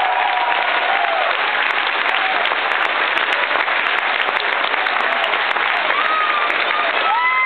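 Audience applauding steadily and loudly for a marching band. At the start the band's last held brass chord fades out, and near the end the brass start a new held chord.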